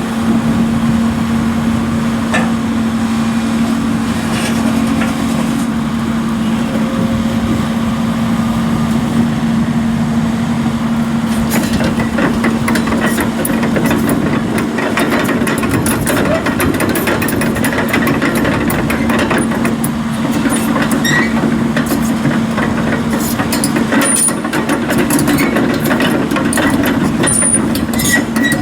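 2011 Sany SY135C excavator's diesel engine running with a steady hum. From about a third of the way in, many short clicks and knocks sound over it.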